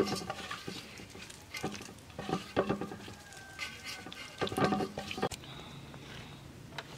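Bare hands squishing and rubbing wet spice paste into raw fish in a metal bowl: soft wet squelching and patting. A few louder, short bursts come in clusters, the loudest about two and a half seconds in and again near five seconds.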